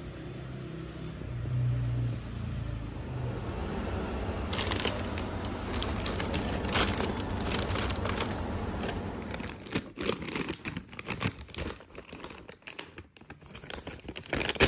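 A low steady hum, then from about four seconds in, plastic chip bags crinkling and rustling as they are handled and a hand digs into one. The crinkles grow sparser and sharper near the end.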